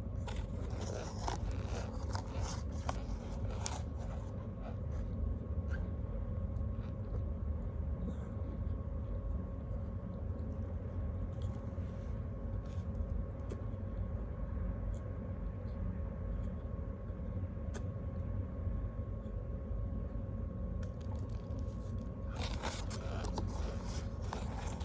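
A snack being handled and eaten: bursts of crinkling and crunching in the first few seconds and again near the end, with scattered single crackles between, over a steady low hum.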